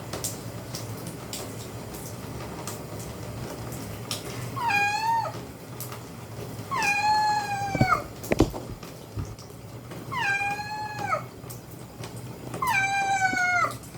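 A cat being bathed meowing four times, long drawn-out meows that drop in pitch at the end, spaced a few seconds apart. A couple of sharp knocks come between the second and third meow.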